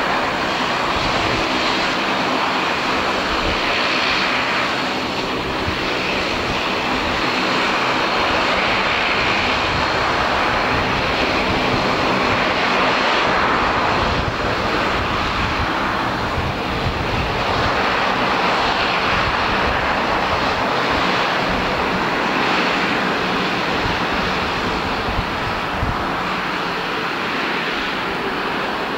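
Bombardier DHC8-Q400's twin Pratt & Whitney PW150A turboprop engines running at taxi power: a steady propeller drone under turbine hiss that swells and eases a little as the aircraft taxis.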